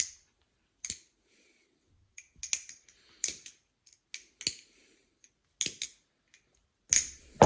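Balisong trainer being flipped: sharp metallic clicks and clacks of the handles swinging and knocking shut, irregular, roughly one every second with quiet gaps between.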